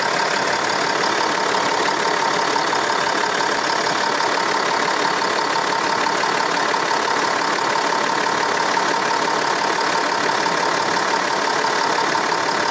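Land Rover Discovery's 3-litre turbo diesel engine idling steadily, heard from beneath the vehicle while the transmission warms up for its fluid-level check.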